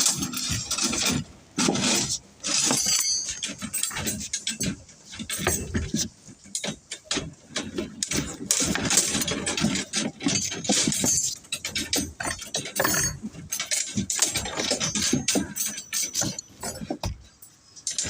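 Construction work on iron reinforcement rods: irregular knocks, clinks and clatter.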